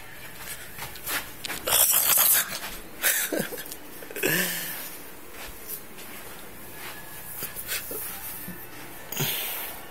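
Several short snorts and sniffs from a Yorkshire terrier puppy, with rustling from the phone being moved about. The loudest rustle comes about two seconds in.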